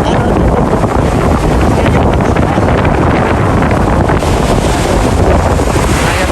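Ocean waves with steady, loud wind buffeting the microphone, a dense low rush with no breaks.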